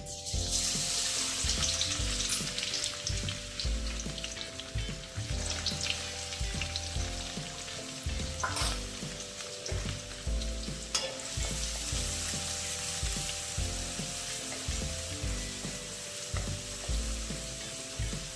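Food frying in hot oil in a pan, a loud sizzle that starts suddenly as the food goes in and then slowly settles. There are a couple of knocks about halfway through. Soft background music plays underneath.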